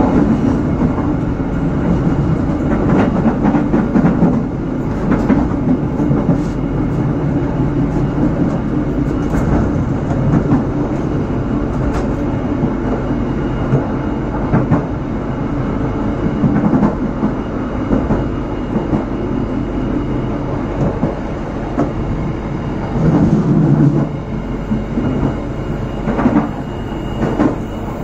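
Passenger train running along the line: a steady rumble of wheels on rail with irregular clicks over rail joints, swelling louder briefly near the end.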